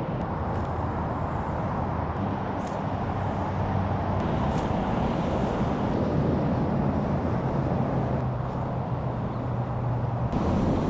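Steady drone of nearby freeway traffic, with a few brief high hisses in the first half.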